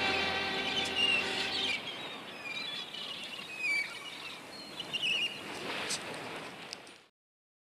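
A held closing chord dies away, leaving faint bird-like chirps over a low hiss. The sound cuts off completely about seven seconds in.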